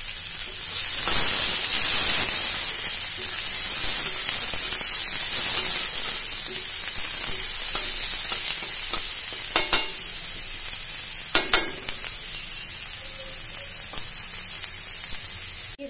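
Chopped onion, green chillies and cumin sizzling in hot oil in a kadhai as they sauté, stirred with a spatula. The sizzle swells about a second in. About two thirds of the way through, the spatula knocks sharply against the pan twice.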